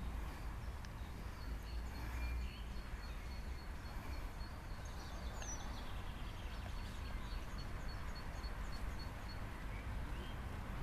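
Outdoor ambience: a steady low rumble with birds chirping faintly, including a high, thin note repeated rapidly for most of the time.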